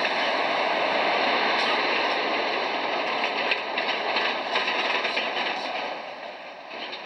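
A city bus towing a passenger trailer rolling close past on cobblestones: a loud, steady rumble of tyres on the cobbles and running gear, with small rattles. It fades near the end as the bus-and-trailer pulls away.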